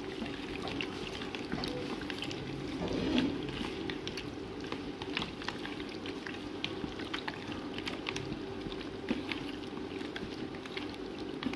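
Hands squishing and kneading raw mutton pieces in a wet yogurt and lemon-juice marinade in a plastic bowl: a continuous run of small wet squelches and sticky clicks, over a faint steady hum.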